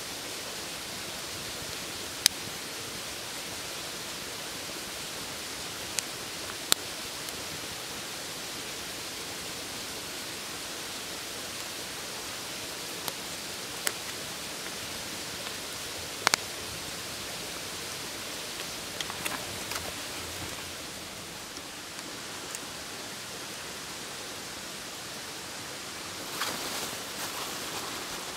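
Wood fire crackling: single sharp pops every few seconds over a steady rushing hiss, with a little light clatter near the end.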